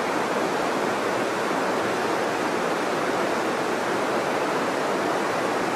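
River water running steadily over a shallow rocky riffle: an even, unbroken rush.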